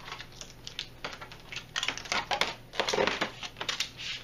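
Rapid, irregular clicking and scraping of an LCD TV panel and its frame being worked loose by hand, busiest in the second half.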